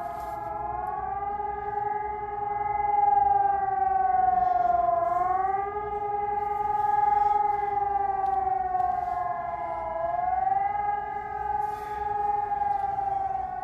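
Helin Sonus HES 600 electronic civil-defence sirens sounding the German public warning signal, a rising and falling howl. The main tone dips and climbs back about every five seconds, with other sirens at different pitches overlapping out of step.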